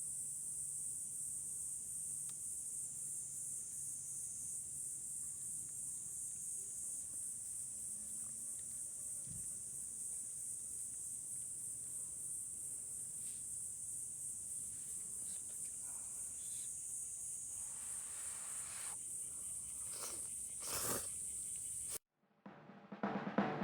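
Insects singing in a steady, shrill chorus with a fine rapid pulsing. A few soft rustles and knocks come near the end, and the chorus cuts off abruptly.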